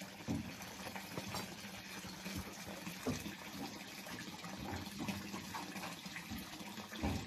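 Faint steady running and splashing of water into a catfish pond, with a few soft knocks.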